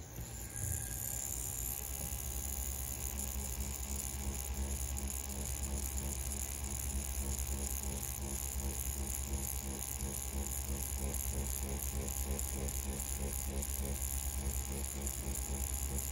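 CNC P6 rotary tattoo pen running with its needle stippling in shading, a steady low buzz with a fast, even pulse.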